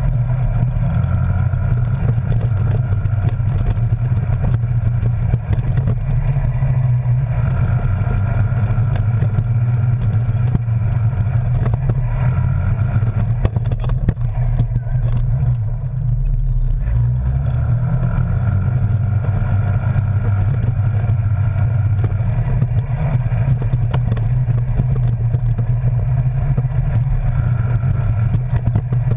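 Arctic Cat Wildcat Sport side-by-side's engine running steadily under way, heard from the cab, its pitch stepping up and down several times with the throttle.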